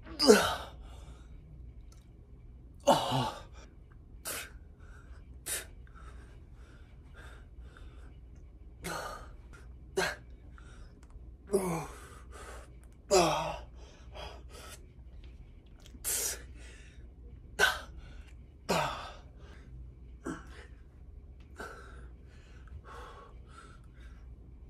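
A man's sharp, forceful breaths and short grunts, about a dozen of them at uneven gaps of one to three seconds, one with each rep of single-arm dumbbell lateral raises. Some of the grunts drop in pitch.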